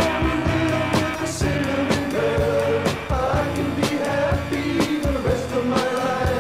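Rock band recording played from a vinyl record: a steady drumbeat, bass and guitars, with a sung vocal line over them.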